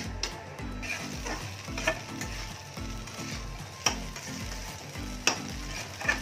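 Flat metal spatula stirring and scraping pasta and vegetables frying in a metal kadai on a gas stove, with a light sizzle and five sharp clanks of the spatula against the pan.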